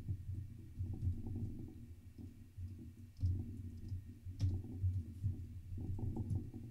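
Typing on a computer keyboard: scattered key clicks over a low background hum.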